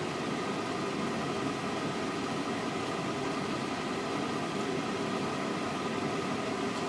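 Steady room noise: an even hiss with a faint hum underneath, unchanging throughout and with no distinct sounds.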